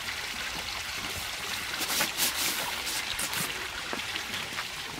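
Steady rushing hiss of outdoor background noise with no clear pitch, swelling a little brighter in the middle.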